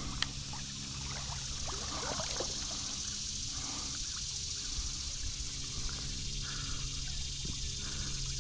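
Creek water running and trickling, with small scattered splashes, thickest about one to two seconds in, and a single sharp click just after the start.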